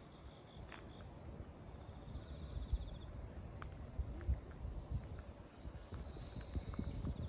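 Insects chirping in short, rapidly pulsed trills that recur every few seconds, over a low rumble with occasional dull thumps.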